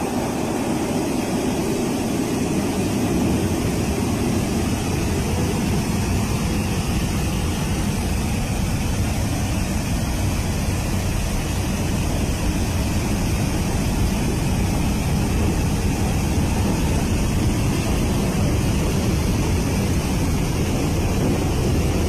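Heavy flow of water pouring out through the opened gates of Mangla Dam: a steady, deep rush of water with no breaks.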